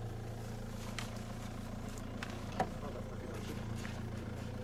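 Steady low mechanical hum, like a running motor, with a few faint clicks and one sharper click about two and a half seconds in.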